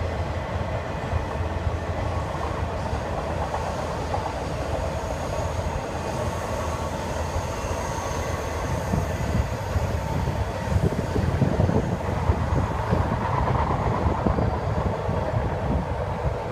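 Freight train cars (autoracks and manifest cars) rolling past, a steady rumble of steel wheels on rail. It grows louder, with uneven clanks and knocks, in the second half.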